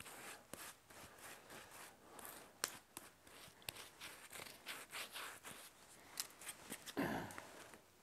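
Chip brush scrubbing wax end-grain sealer onto the cut end of a small log: faint, irregular scratchy brush strokes, with one louder knock about seven seconds in.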